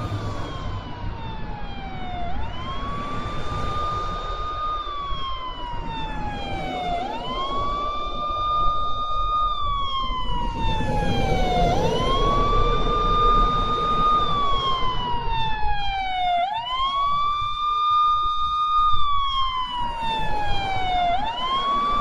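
Emergency-vehicle siren in a slow wail: the pitch rises quickly, holds high for a couple of seconds, then slides down, repeating about every five seconds, over a low rumble of traffic.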